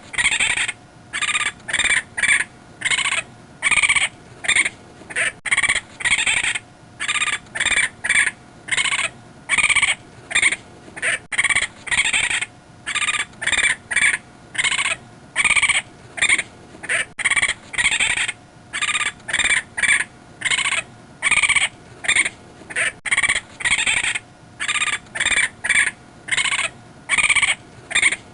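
Wild raccoon calling: a long string of short, high calls, roughly two a second, in runs broken by brief pauses.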